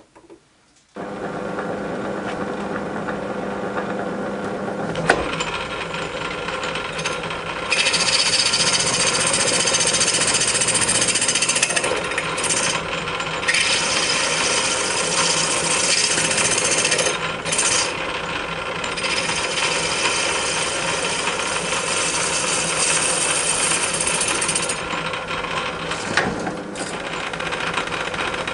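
Metal lathe starting up about a second in and running steadily with a hum from motor and gearing. From about eight seconds in a tool facing a cast flywheel on the faceplate adds a high, hissing cutting noise, which stops briefly a few times as the cut is paused.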